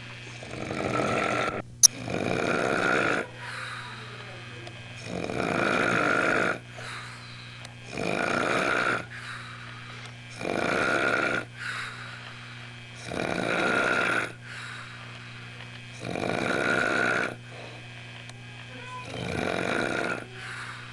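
Pig-like snoring from a sleeper: a loud snore every two to three seconds, each about a second long, quieter between. A sharp click about two seconds in, over a steady low hum.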